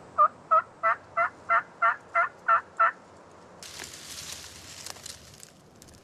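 Turkey yelping: a run of about nine evenly spaced yelps, roughly three a second. About three and a half seconds in, a rustling of brush takes over.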